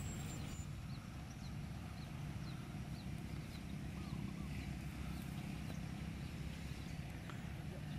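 Outdoor ambience: a steady low rumble with a faint run of short, high, rising chirps from a small bird.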